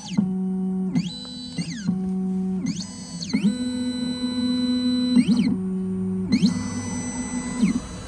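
Triton Plus key cutting machine running its automatic calibration: its motors whine in a series of steady pitched tones that change pitch every second or so as the decoder probes move about the jaw. Each move starts or stops with a quick sweep in pitch; the longest and loudest move comes around the middle.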